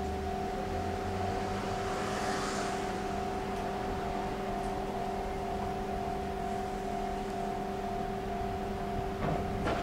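Railway trackside ambience: a steady hum of several held tones over a light wash of distant traffic and rail noise while a commuter train approaches far down the line. There is a brief rise of hiss a couple of seconds in, and a few short clicks near the end.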